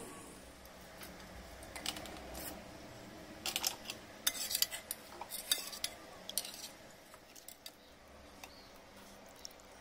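A steel spoon clinks against a metal pot while stirring milk that has split into paneer curds and whey. The clicks come scattered and irregular, thickest a few seconds in.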